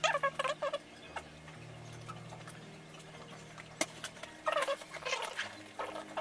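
Background music with low held chords that change every few seconds, and bursts of quick, chirpy high-pitched notes near the start and about five seconds in.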